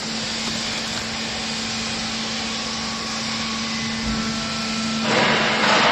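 Hydraulic baling press running: a steady motor-and-pump noise with a constant hum. About five seconds in, a louder rushing noise comes in.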